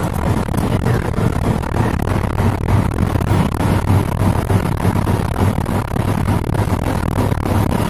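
Old Mitsubishi Fuso dump truck's diesel engine working hard under a load of about 40 tonnes of sand, heard from inside the cab as a loud, steady, deep drone.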